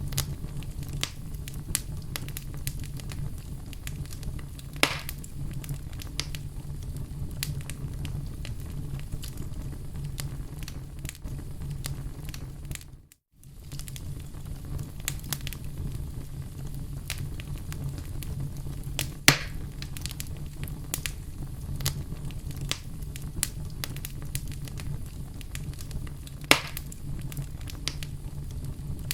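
Wood fire crackling in a fireplace: a steady low rumble of flame under constant small crackles, with three sharper pops spread through. The sound fades out for a moment about halfway through and comes straight back.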